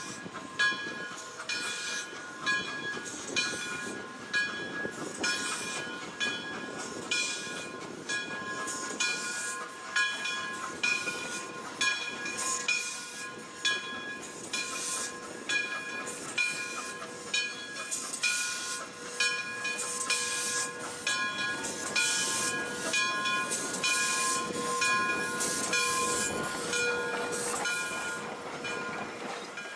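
Frisco 1630, a 1918 Baldwin 2-10-0 steam locomotive, working with steam hissing as a bell rings steadily, about one and a half strikes a second.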